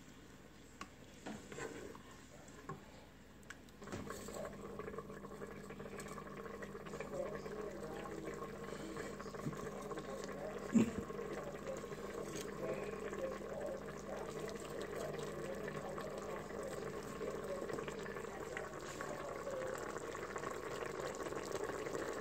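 Tomato and red-wine braising sauce bubbling as it simmers in an electric cooker's pot. The bubbling sets in about four seconds in, after a few light taps of a wooden spoon against the pot, and there is a single sharp knock about eleven seconds in.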